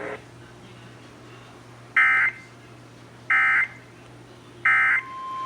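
Emergency Alert System data tones: three short warbling bursts of SAME digital code, about a second and a half apart, sent as the end-of-message signal closing the severe thunderstorm warning. Near the end, a steady single-pitch NOAA Weather Radio alert tone of about 1 kHz begins.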